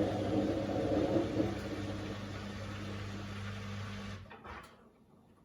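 Indesit IWD61450 washing machine running a service-mode test step: a steady hum with a noisy wash over it, fading and then cutting off about four seconds in.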